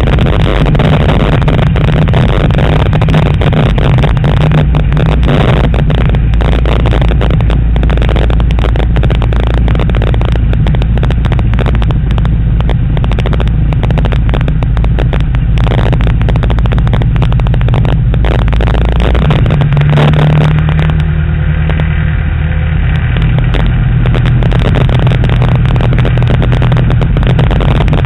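Light airplane's piston engine and propeller running steadily with a loud drone. The engine note changes about two-thirds of the way through.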